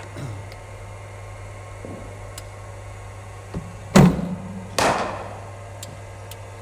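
A cricket ball delivery from a bowling machine. Two loud knocks come under a second apart about four seconds in, the second with a ringing tail: the machine firing the ball and the bat striking it. A steady electrical hum runs underneath.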